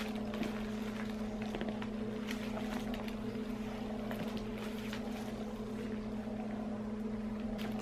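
Steady electric hum from the motor of a baby's Rock 'n Play rocking sleeper, with light rustling of tissue paper as the bag is handled.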